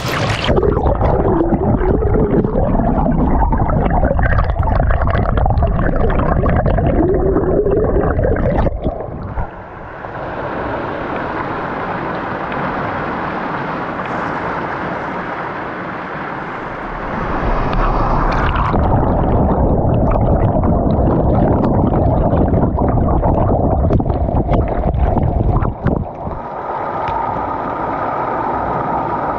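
Mountain stream water rushing and gurgling over several abrupt cuts, some stretches muffled and rumbling, one brighter and hissier. A steady tone joins in the last few seconds.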